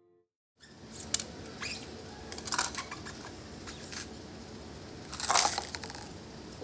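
Scattered sharp clicks and knocks of small objects being handled on a table, with one louder clatter about five seconds in.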